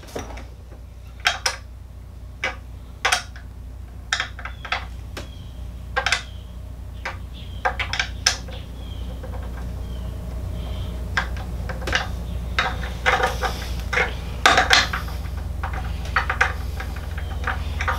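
Irregular clicks, knocks and light clinks as a cordless cut-off saw is handled and worked with a small tool, over a steady low hum.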